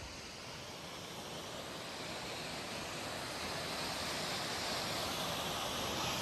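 A steady rushing noise that grows gradually louder.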